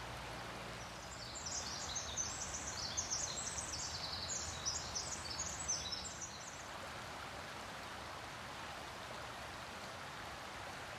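Shallow forest creek trickling steadily over stones. From about a second and a half in until about six seconds, a small songbird sings one long song of rapid, high-pitched notes.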